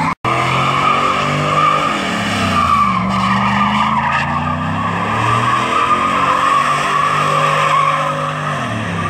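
Pickup truck doing a burnout: tyres squeal continuously against the pavement while the engine revs, its pitch sagging and climbing again a few times.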